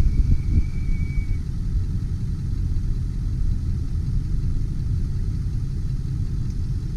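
Ford 7.3L Power Stroke V8 turbo diesel idling with a steady low rumble.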